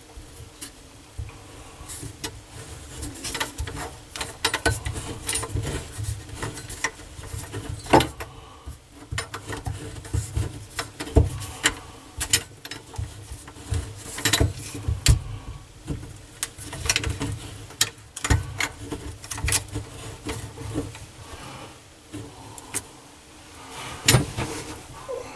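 Irregular clicks, taps and scrapes of hands working the parts of a pop-up sink drain assembly, with a faint steady hum underneath.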